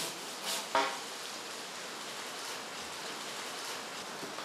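Hand saw cutting through a cedar log with a steady, even rasp, after a single ringing knock about a second in.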